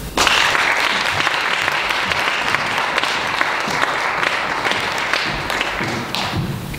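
Audience applauding. It breaks out suddenly just after the start as dense, even clapping and thins out near the end.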